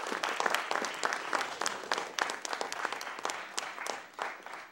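Audience applauding: many overlapping claps that thin out and die away near the end.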